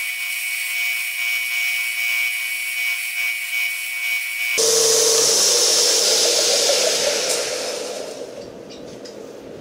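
Belt grinder running while the end of a steel rod is ground on its abrasive belt: a steady grinding hiss. For the first four and a half seconds it sounds thin and high, without the motor's low hum. It then runs fuller with the motor's hum, and dies away gradually about eight seconds in as the grinding stops.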